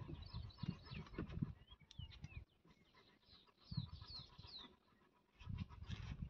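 Birds chirping in short, high calls, over irregular low bumps and rustling.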